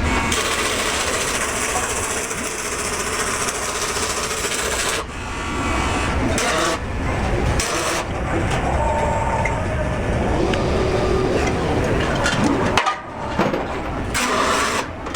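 Automated bumper welding line running: a continuous noisy mechanical din, changing abruptly several times.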